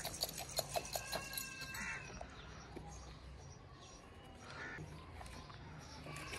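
Crinkling and crackling of a paper gift packet being handled and opened by hand, a quick run of sharp clicks in the first second or so. A few short bird calls, crow-like caws, sound behind it, about two seconds and five seconds in.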